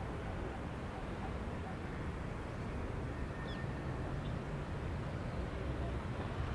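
Steady low background rumble, with a few faint, short high bird chirps around the middle.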